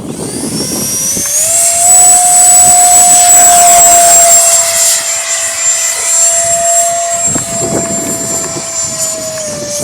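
E-flite Viper 64mm electric ducted-fan jet at full throttle for takeoff: a high whine that rises in pitch over the first second and a half, then holds steady, growing a little fainter after about four seconds.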